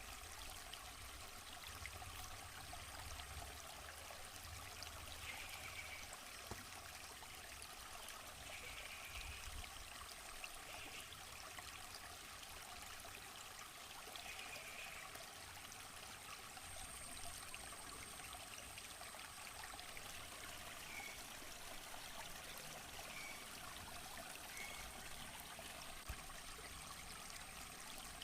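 Stream of water flowing steadily, with a few faint short chirps over it.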